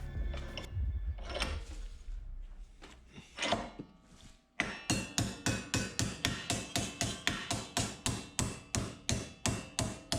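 Hammer beating a strip of steel into an angle bend. After a few scrapes as the piece is set down, a steady run of sharp, ringing metal blows starts about halfway in, about three a second.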